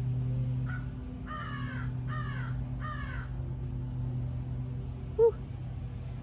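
A crow cawing: one short call, then three harsh caws in quick succession, over a steady low hum.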